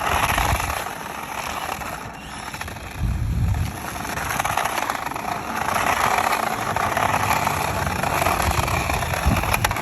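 Toy RC drift car running: a steady, noisy electric whirr that swells and dips, with a low thud about three seconds in.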